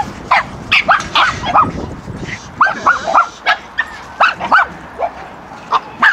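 Dogs barking and yapping: short, high-pitched yips coming in quick runs of three or four at a time.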